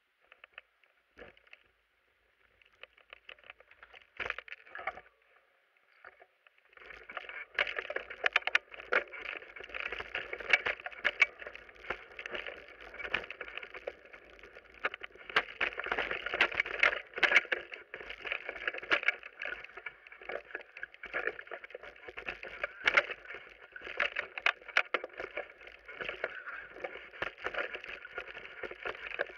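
Mountain bike descending a rough forest trail: a few scattered knocks at first, then from about seven seconds in a steady ride noise full of quick knocks and rattles as the bike runs over roots, gravel and bumps.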